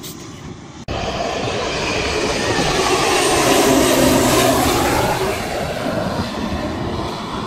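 Air Tractor AT-802F floatplane's turboprop engine and propeller in a low, close pass overhead. The sound cuts in suddenly about a second in, swells to its loudest about four seconds in, then fades as the pitch falls away.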